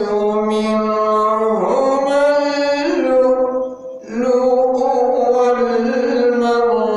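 A man reciting the Quran (tilawat) in a melodic, drawn-out chant, holding long notes that glide slowly in pitch. He breaks off briefly for a breath about halfway through, then carries on.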